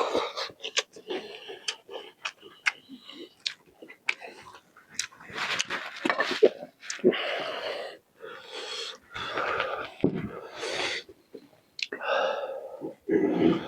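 Close-up mouth sounds of a person eating meat curry: wet chewing, lip smacks and sharp mouth clicks, mixed with noisy breaths and slurps.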